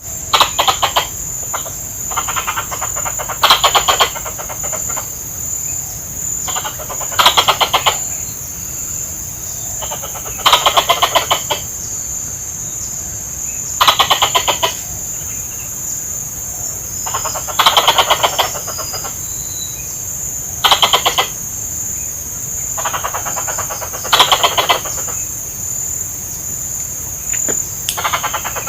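Adult squirrel calling in repeated rapid chattering bursts, each about a second long, coming every few seconds and alternating louder and fainter, over a steady high-pitched whine.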